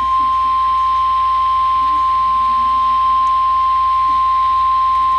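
NOAA Weather Radio warning alarm tone: a single loud, steady pure tone of about 1050 Hz, held without a break. It is the attention signal that announces an incoming warning broadcast.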